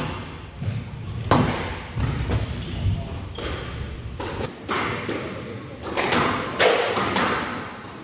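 Squash play on a glass-backed court: a series of sharp smacks and thuds from the ball off the racket and walls, with players' footsteps, echoing in a large hall. The hits come thickest in the second half.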